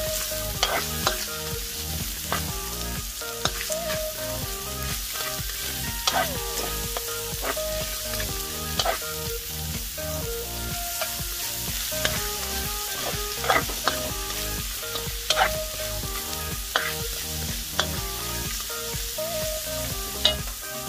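Vegetables and shrimp sizzling in hot oil in a metal wok while a spatula stirs and tosses them, with sharp clicks and scrapes of the spatula against the pan every second or two.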